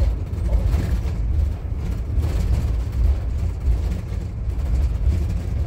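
Town bus driving, heard from inside the passenger cabin: a steady low rumble of engine and road noise.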